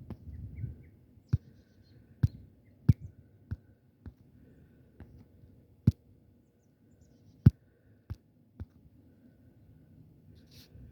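A series of about nine sharp knocks at irregular intervals, the loudest about seven and a half seconds in.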